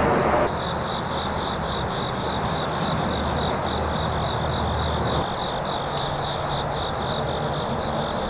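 Chorus of insects: a steady high trill with a pulsing chirp beneath it, about three pulses a second, over a low rumble of distant road traffic.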